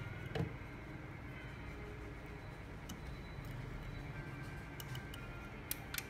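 Light clicks and taps from handling a small woofer and the speaker's plastic housing. There is a sharp click about half a second in, a few faint ticks, and a quick pair of clicks near the end, over a low steady hum.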